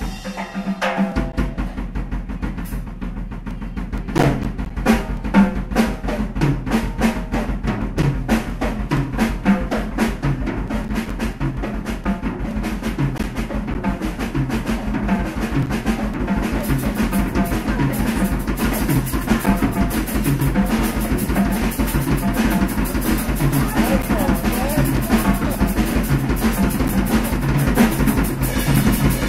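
Live rock band playing: a drum kit drives a fast beat over a low bass line that comes in about a second in. The cymbals fill in and the music grows a little louder in the second half.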